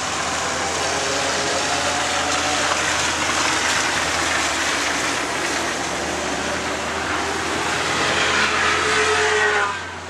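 Cars running on a race track, their engines faint and changing in pitch over a steady hiss. Near the end an engine rises in pitch as a car accelerates.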